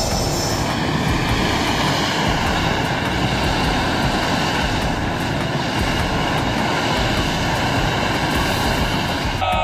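High-pressure air truck's blower blasting air at the road surface to clear ice, a loud, steady rushing roar that cuts off abruptly near the end.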